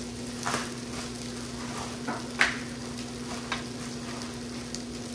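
Butter and food sizzling steadily in hot frying pans on the stove, over a steady low hum. A few short crinkles and clicks come through as a plastic tortilla bag is handled and a tortilla is laid in the pan, the sharpest about halfway through.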